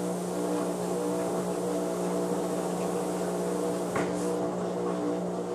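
Front-loading washing machine running: a steady motor hum with several higher tones that come and go, and a single light click about four seconds in.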